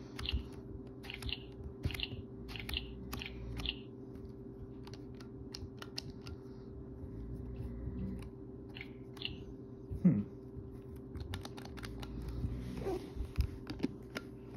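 Plastic clicking and rattling as the Little Tikes Spell & Spin toy pencil is handled and its cap and letter rings are turned by hand, with a run of quick scratchy strokes in the first few seconds and a louder bump about ten seconds in.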